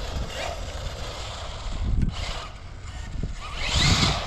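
Brushless electric motor of an Arrma Talion 6S EXB RC car running on 6S at full throttle, its whine swelling and, near the end, rising sharply in pitch as the car speeds up.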